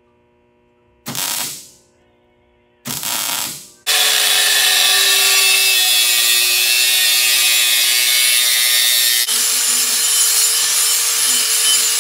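Angle grinder with a cutoff wheel cutting steel exhaust tubing: two short bursts, then a long cut in which the motor's whine sags slightly in pitch under load. About nine seconds in it switches abruptly to a second small grinder with an abrasive disc working the tube's cut end, running steadily.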